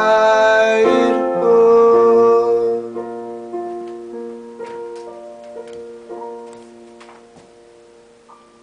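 Piano playing the closing chords of a song, held notes ringing for a couple of seconds, then a few quieter notes as the sound fades out.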